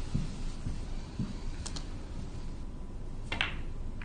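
Snooker balls knocking and clicking together as the struck pack of reds spreads on the table: a few soft knocks, then a sharp click about a second and a half in and another about three and a half seconds in.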